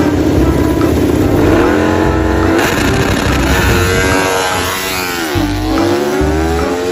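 Racing motorcycle engine revving: its pitch climbs steadily, drops sharply a little over five seconds in, then climbs again.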